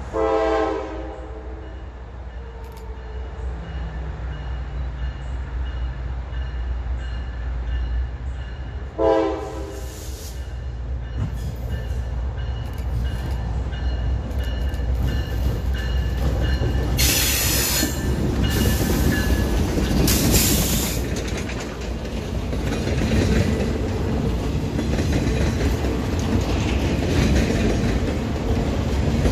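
Diesel freight train approaching and passing. The locomotive's horn sounds two short blasts, one at the start and one about nine seconds in. Then the low engine rumble builds as it draws near, and the boxcars and flatcars roll past with brief high wheel squeals a little past the middle.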